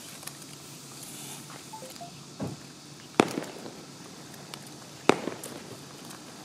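Two sharp, loud firework cracks about two seconds apart, with a softer thump shortly before them, over steady low background noise.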